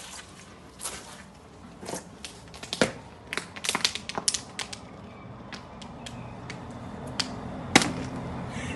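Footsteps of several people walking on a street: sharp, irregular clicks of shoes striking the ground, overlapping in an uneven rhythm. A faint low hum rises toward the end.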